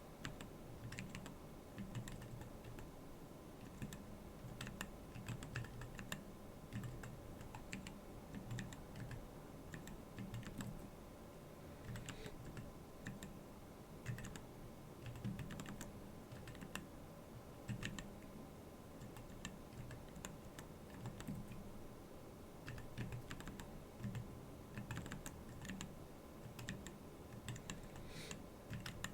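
Continuous typing on a Keyball39 split mechanical keyboard: a steady, irregular run of keystroke clicks at typing speed.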